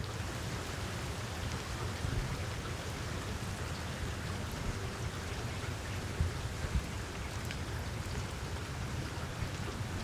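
Steady rain falling on broad leaves: an even, continuous hiss with a few louder single drop taps.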